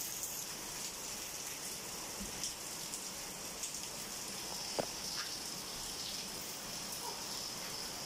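Steady rain falling: an even hiss, with a few single louder drops ticking close by.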